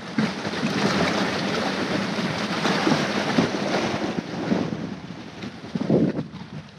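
Sea surge washing and breaking against rocks around an inflatable dinghy, with wind buffeting the microphone and a steady low hum underneath; one surge swells louder about six seconds in.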